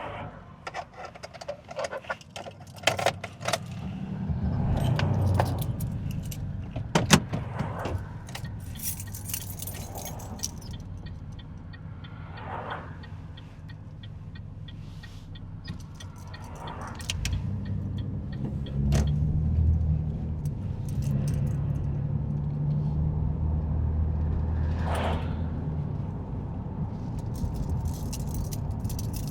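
Inside a car while driving: a steady low rumble of engine and road, with a flurry of small clicks and rattles in the first several seconds. The rumble grows louder a little past the middle.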